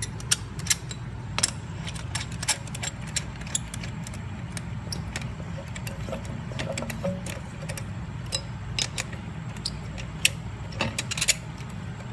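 Irregular metallic clicks and clinks of bolts, a brake caliper bracket and hand tools being handled during reassembly, a few sharper ones standing out, over a steady low hum.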